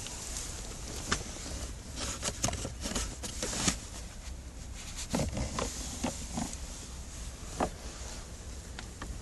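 Hands working the plastic cabin-air-filter housing and filter behind a Kia Grand Carnival's glove box: scattered clicks, knocks and rustles, busiest in two runs in the middle, over a steady hiss.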